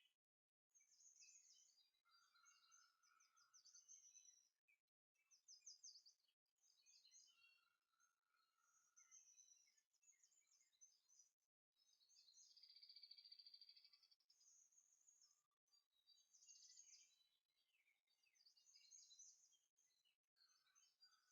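Faint birdsong: rapid chirps and trills, with a longer whistled phrase about halfway through. It cuts out to dead silence several times.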